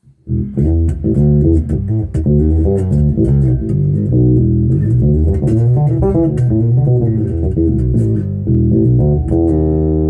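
Zoot Wal-a-Like electric bass played through a Gallien-Krueger bass amp into a 1x12 cabinet: a busy run of quick plucked notes with sharp attacks, then a single held note ringing out near the end.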